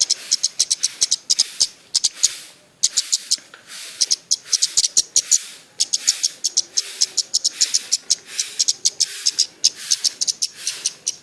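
A caged 'citbang' songbird singing in bursts of rapid, high, sharp chirps, each burst lasting about half a second to a second, with short pauses between them.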